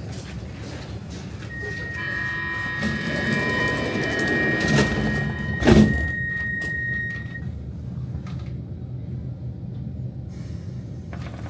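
Metro train's door-closing warning: a steady high tone with several other tones layered over it sounds for a few seconds, then the sliding doors shut with a loud thud about six seconds in. The low rumble of the train pulling away follows.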